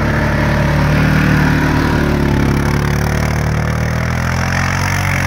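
Polaris Sportsman 570 ATV's single-cylinder engine running steadily at low speed as the quad drives slowly past close by through deep snow.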